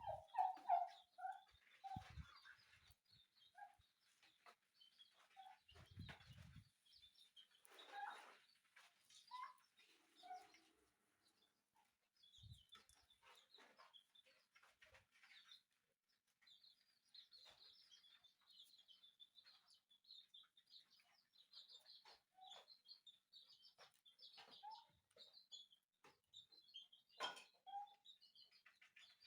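Faint, scattered clucks and short calls of free-range village poultry, mostly in the first few seconds. Through the second half comes a long run of high, quick chirping, and there is a single knock near the end.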